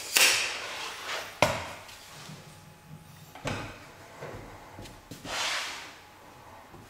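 Handling sounds: a sheet of 3/4 inch Baltic birch plywood sliding and shifting across a table saw top, in a few short swishes, with one sharp knock about a second and a half in.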